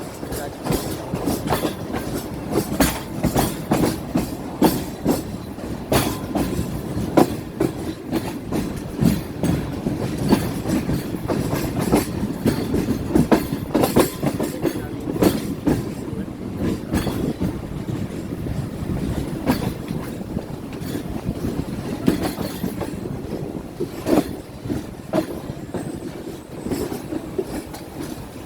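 Awam Express passenger train running on the line: a continuous rumble with frequent sharp clacks and knocks from the wheels over the rail joints.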